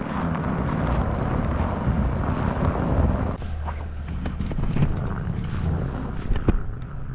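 A GMC pickup truck driving slowly over packed snow, its engine running at a low, steady note with the noise of its tyres on the snow. A few sharp clicks come near the end.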